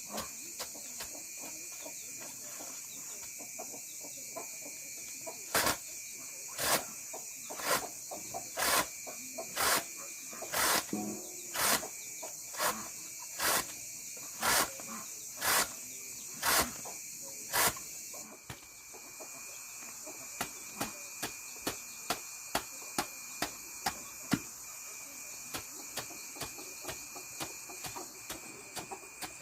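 Sharp knocks about once a second, then fainter, quicker ticks after about 18 seconds, over a steady high insect-like chirring.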